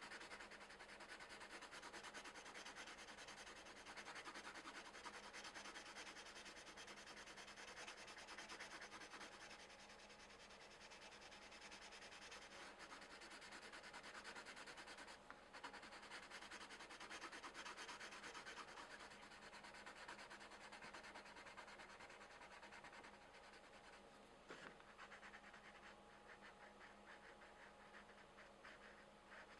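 Coloured pencils shading on coloring-book paper: a faint, continuous scratching of quick back-and-forth strokes, broken by short pauses about fifteen and twenty-four seconds in.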